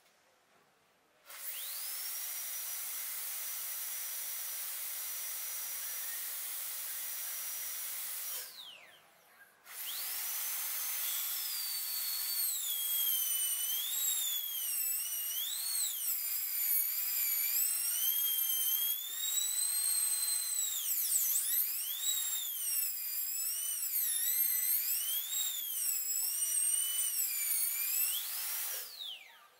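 High-speed air-turbine dental handpiece with ceramic bearings spinning a bur: a high whine spins up about a second in and holds steady, winds down near the middle, then starts again over a hiss of water spray. On the second run its pitch swings up and down over and over before it winds down at the end.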